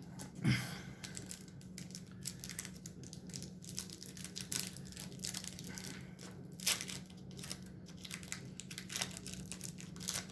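A 1993 SkyBox DC Cosmic Teams trading card pack's wrapper being crinkled and torn open by hand: a run of small crackles, with louder ones about half a second in and near seven seconds.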